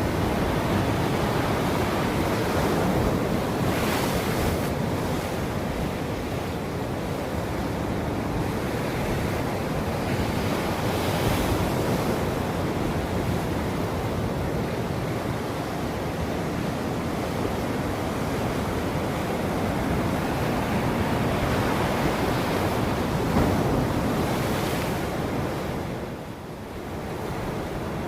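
Ocean surf: waves breaking and washing in a continuous rush, with brief brighter hissing swells about four, eleven and twenty-five seconds in and a short lull just after twenty-six seconds. Some wind noise on the microphone.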